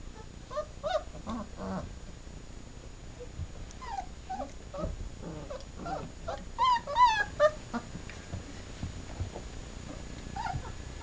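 Three-week-old German Shepherd puppies whimpering and squealing as they wrestle: a string of short, high, wavering squeaks, with a louder run of squeals about two-thirds of the way through.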